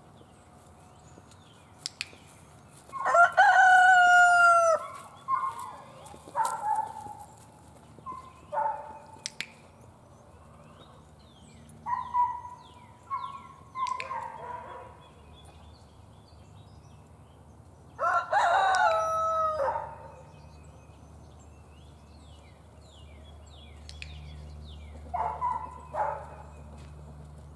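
Roosters crowing: a long, loud crow about three seconds in and another about fifteen seconds later, with shorter, fainter crows and clucks in between and near the end.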